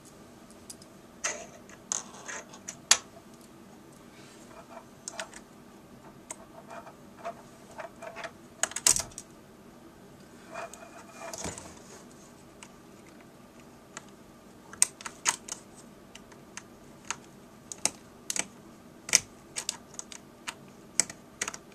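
Irregular clicks and light taps of a screwdriver and small screws being worked out of a laptop screen's metal inner frame and handled. They come in scattered clusters, thickest in the last third.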